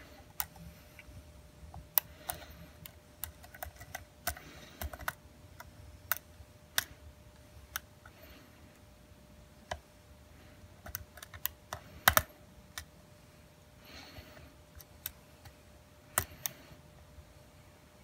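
Lock pick working the pins in the rear of a brass Schlage split-core padlock's core under tension: small irregular clicks and taps of steel pick against pins and brass, the loudest a quick cluster about twelve seconds in.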